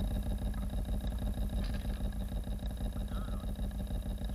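Swamp Dawg model airboat's motor and air propeller running steadily, heard close up from on board, with a rapid, even pulsing.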